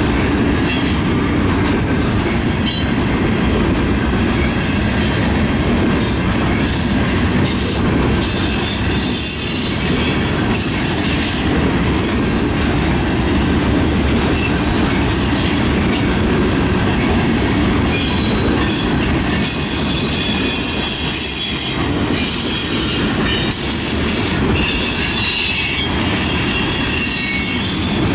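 Freight cars of a Canadian National manifest train rolling past: a steady, loud rumble of steel wheels on rail. A high-pitched wheel squeal rises and fades several times.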